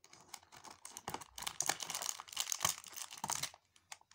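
Cardboard advent-calendar door being pressed and torn open and a small plastic bag of LEGO pieces crinkling as it is pulled from the compartment: a rapid, irregular run of crackles and rustles that dies away near the end.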